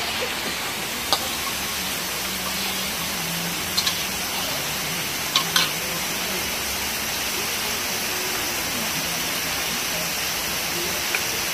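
A few sharp metallic clicks of a metal spatula against a wok on a portable gas stove, twice in quick pairs about four and five and a half seconds in, over a steady hiss.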